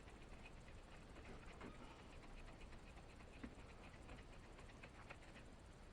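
Faint, irregular light ticking and scraping of a plastic knife stirring two-part epoxy resin and hardener, with one slightly sharper tick about three and a half seconds in.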